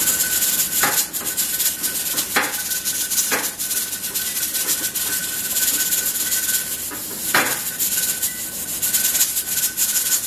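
Pressure canner's weighted jiggler rocking on its steam vent at 10 pounds of pressure: a fast rattling hiss of escaping steam with a few louder puffs, the weight regulating the canner's pressure. A faint steady high tone runs through it.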